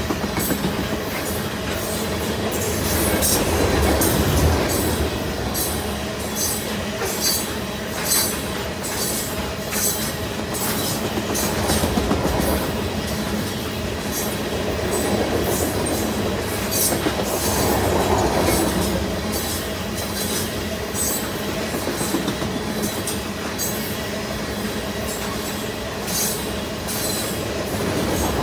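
Freight train of tank cars rolling past: a steady rumble of steel wheels on rail with a running series of sharp clicks as the wheels cross rail joints.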